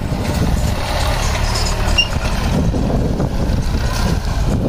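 Diesel engines of a Farmtrac and a Deutz-Fahr tractor running under load, pulling mouldboard ploughs through the soil: a steady, dense low rumble.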